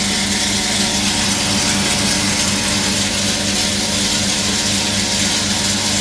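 Homemade disc wood chipper running on its electric motor: a steady hum with a strong hiss over it from the spinning knife disc, as it throws out shredded wood.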